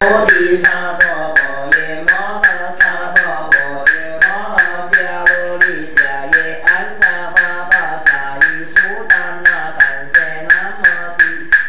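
Buddhist chanting: one voice intoning a slow, rising and falling chant, kept in time by a wooden fish (muyu) struck in a steady beat of about three knocks a second.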